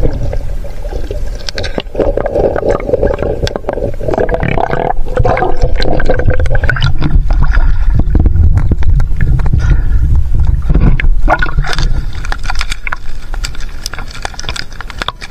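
Water sloshing and splashing around a camera moving under and at the surface while a wire-mesh fish trap is hauled up, with a heavy low rumble and many sharp knocks and rattles.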